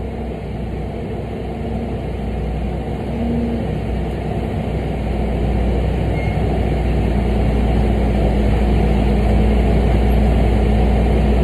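Freightliner dump truck's diesel engine running steadily as the truck rolls slowly, heard from inside the cab. The engine sound grows gradually louder.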